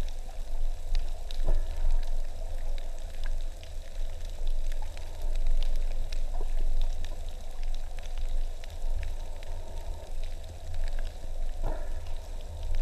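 Underwater ambience heard through a submerged camera: a steady low rumble of water moving against the housing, with scattered fine crackling clicks throughout.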